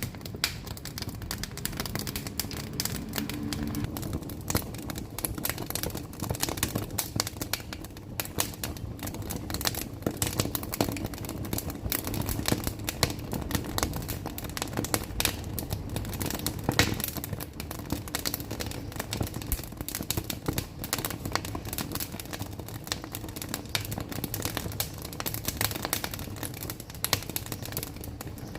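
Wood fire burning in a wood-fired stove, crackling and popping in dense irregular snaps over a steady low rumble of the flames, with a louder pop about 17 seconds in.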